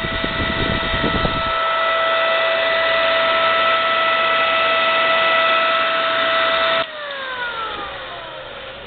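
Dumore Series 57 tool post grinder's electric motor running at speed with a steady high whine, then switched off about seven seconds in, its whine falling in pitch as it coasts down.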